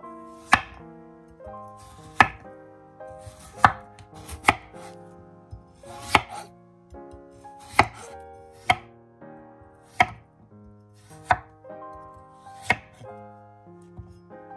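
Santoku knife slicing raw peeled potatoes into rounds on an end-grain wooden cutting board, each cut ending in a sharp knock of the blade on the wood; about ten knocks, spaced a second or so apart. Soft background music runs underneath.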